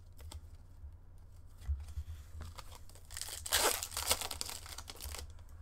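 A hockey card pack's foil wrapper being torn open and crinkled. It is loudest for about two seconds near the end, with a few small handling clicks before.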